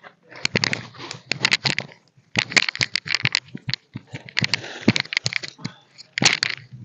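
Dense crackling and rustling with many sharp snaps, starting about half a second in and pausing briefly just after two seconds.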